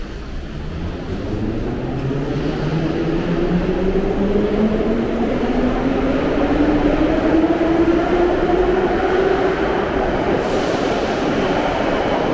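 Subway train on the platform track, its motor whine rising steadily in pitch over rumble and track noise as it gathers speed.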